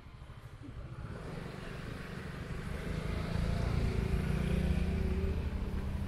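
A motor's low rumble growing steadily louder, loudest a little past the middle, as of an engine drawing close.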